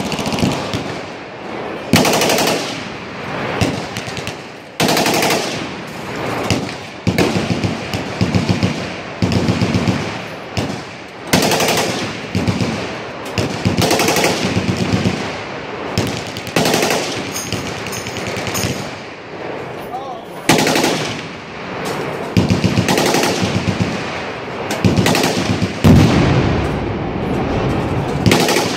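Full-auto Glock pistol firing short bursts of automatic fire, one burst every second or two throughout.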